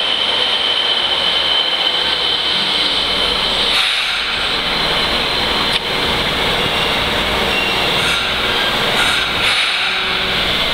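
Fukuoka City Subway 1000N-series train running along an underground platform and on into the tunnel: a steady rumble of wheels on rail, with a steady high whine for the first few seconds.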